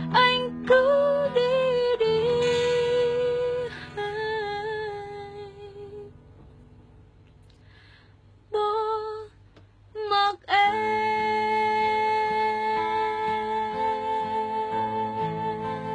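A woman singing long held notes with vibrato in a slow ballad. The notes fade almost to nothing about six seconds in, two short notes follow, and a long sustained note begins about ten and a half seconds in.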